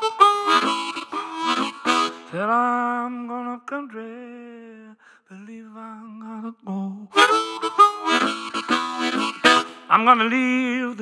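Solo harmonica played cupped against a vocal microphone: loud chords and single notes, with a note bent upward about two seconds in, a softer passage in the middle, then loud chords again and a wavering held note near the end.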